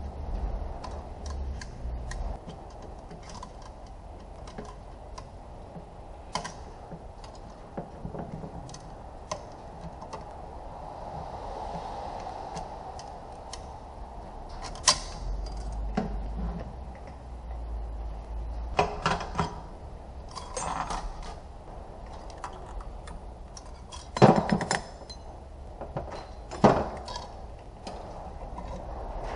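Metal transmission parts and hand tools clinking, tapping and knocking as they are handled, with a few sharper metallic knocks, over a steady background hum.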